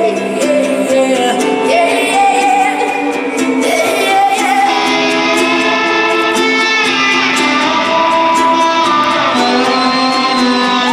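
Live performance of a song: a woman singing lead over band accompaniment with guitar.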